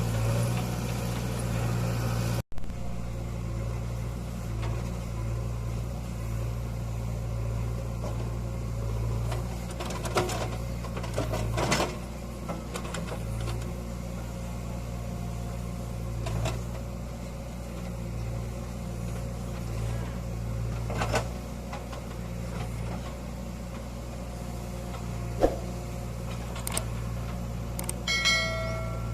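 Heavy diesel engine running at a steady low speed, with a few sharp knocks scattered through. A short run of high tones sounds near the end.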